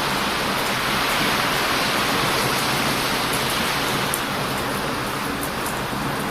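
Heavy surf washing onto a beach, a steady rushing noise that swells a second or so in, with a few faint crackles from a burning wood bonfire.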